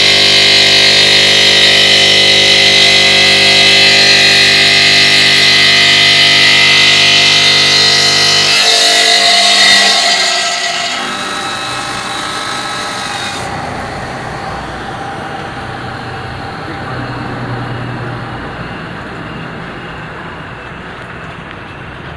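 OSC-Titan 5-axis CNC bridge saw's water-cooled diamond blade cutting a stone slab: a loud steady whine made of many held tones. About nine to eleven seconds in the whine drops away, leaving a quieter steady noise.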